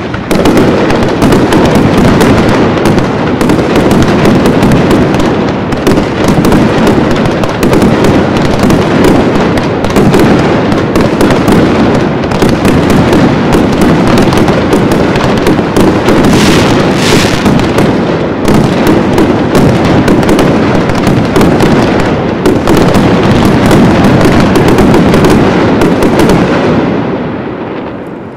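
Fireworks barrage: a dense, continuous stream of explosions, reports following each other too fast to count, with a brief high hiss about seventeen seconds in. The barrage dies away at the very end.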